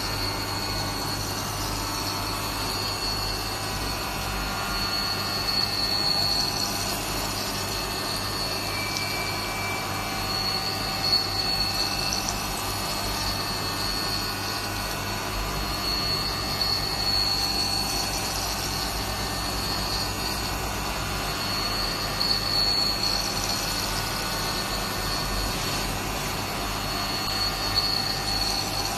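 CNC machine running: steady machining noise with a low hum and a high whine that swells and fades every few seconds, with a few brief louder peaks.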